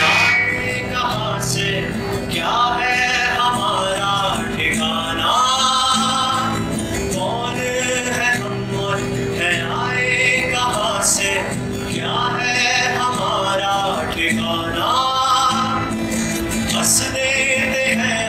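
A man singing solo with vibrato while strumming an acoustic guitar, performed live into a microphone.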